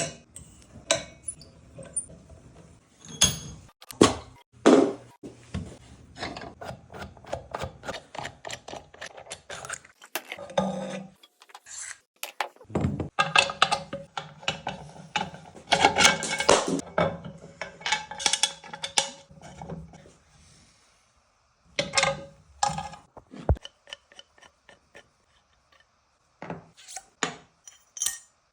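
Hand tools and metal scooter parts clinking, knocking and scraping during a stunt scooter's wheel and fork swap: irregular taps and rattles, with a quieter stretch about two-thirds of the way through.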